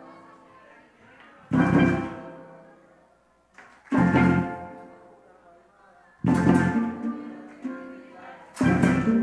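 Acoustic guitar strummed in single chords about every two and a half seconds, each chord left to ring out and fade before the next.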